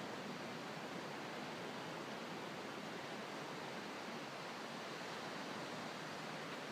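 Distant ocean surf: a steady, even wash of breaking waves without separate crashes.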